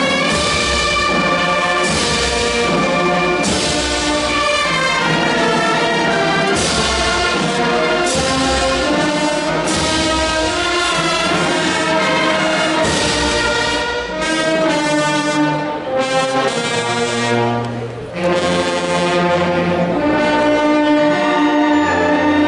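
Brass band playing a march: sustained chords from trumpets and trombones over repeated drum strokes, softening for a few seconds just past the middle before the full band returns.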